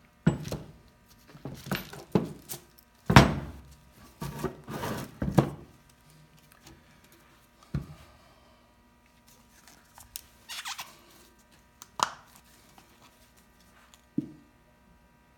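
Wooden boards being handled and set down on a workbench: a quick run of knocks and thunks over the first five seconds or so, the loudest about three seconds in, then a few scattered taps and clicks.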